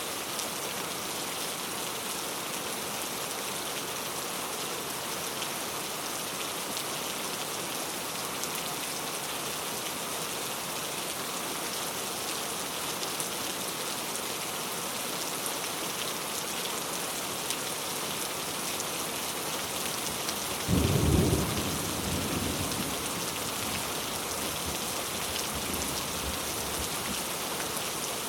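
Very heavy rain falling steadily as a dense hiss. About twenty seconds in, a sudden loud thunderclap breaks in and rolls off into a low rumble over a few seconds.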